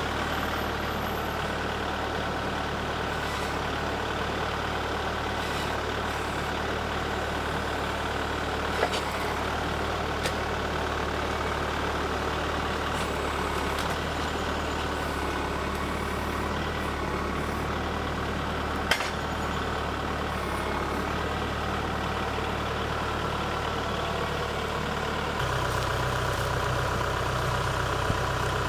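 A large engine running steadily at one speed, stepping to a different engine speed about 25 seconds in, with a few sharp knocks over it.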